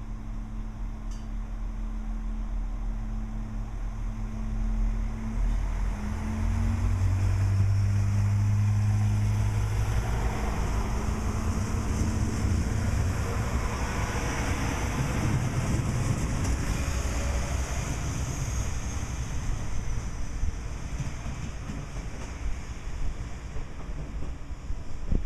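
Alstom Coradia LINT diesel railcar at the platform, its engine running with a steady low hum. About six seconds in, the engine note steps up and pulls hard as the train moves off. This is followed by the rumble of the train rolling along the track, swelling and then fading.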